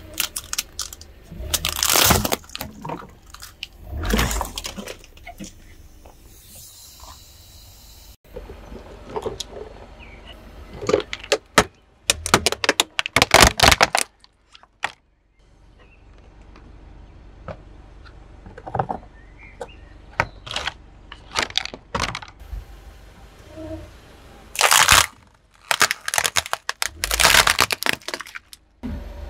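Things being crushed under a car tyre: a series of sharp cracks and crunches, some coming in quick clusters, with a short break about halfway through.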